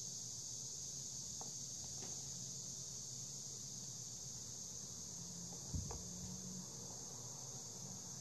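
Steady high-pitched background hiss, with one soft knock about six seconds in as a small plastic bottle-cap frying pan is set down on cardboard.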